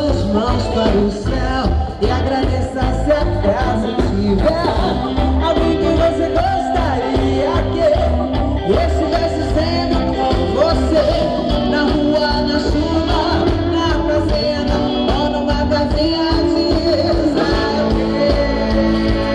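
Live band playing a Brazilian soul song: a woman singing over electric guitar, electric bass, keyboards and drums, with a steady beat.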